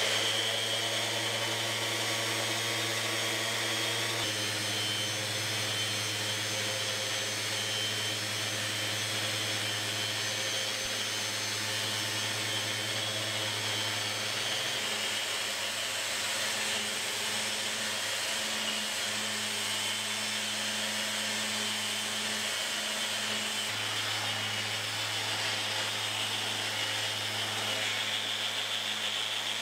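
Random orbital sander starting up and then running steadily on a black walnut slab, a constant hum with a high whine, along with the hiss of its dust extraction.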